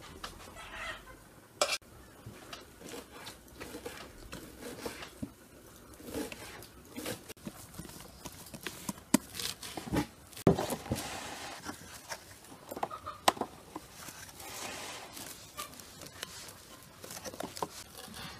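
Scattered knocks, taps and clinks of bowls and utensils being handled on a table, with chickens clucking now and then.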